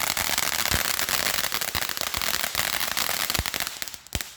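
A TNT eruption-type fountain firework spraying, with a steady hiss dense with rapid sharp pops. It dies down briefly near the end, then starts again.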